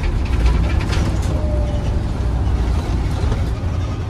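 Volvo B7RLE single-deck bus's six-cylinder diesel engine running, heard from inside the saloon as a steady low rumble, with light rattles and clicks in the first second or so.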